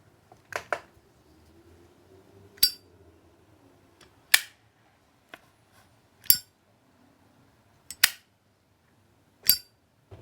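A well-worn genuine 2011 Zippo lighter having its hinged metal lid flicked open and snapped shut over and over. There are six sharp metallic clicks, about two seconds apart, and the first is a quick double click.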